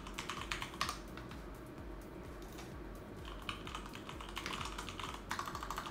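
Computer keyboard typing: a quick run of keystrokes in the first second, a pause of a couple of seconds, then another run of keystrokes to type a search query.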